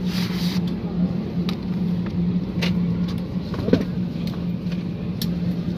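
Steady low hum in the cabin of an Airbus A320-214 parked at the gate before engine start. A short rustle comes at the start and light clicks run through it as the seat-back safety card is pulled out and handled.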